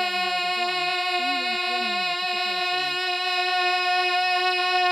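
A man's wordless, wavering sung melody over a steady held drone note. The melody stops about three seconds in, and the drone carries on alone.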